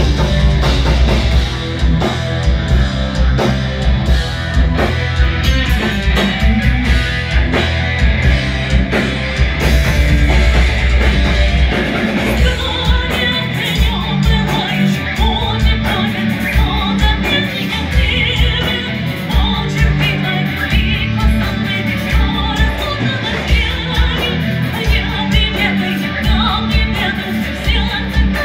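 Live metal band playing heavy distorted guitars, bass and pounding drums. About twelve seconds in, a woman's singing voice comes in over the band.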